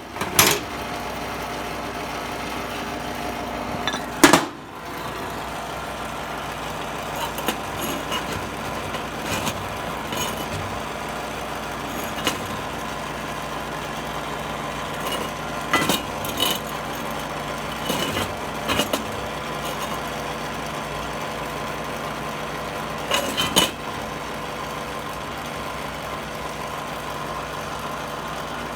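A steady mechanical hum runs throughout, with a few scattered metallic clinks and knocks, the loudest about four seconds in.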